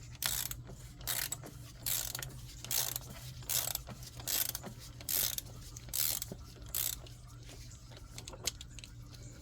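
Ratchet wrench clicking in about nine even strokes, one every second or so, loosening the oil filter housing cap on a BMW 325i engine, then stopping about seven seconds in.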